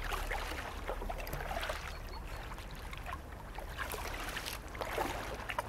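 Water splashing and trickling around a kayak from paddle strokes, in short irregular splashes over a low steady rumble.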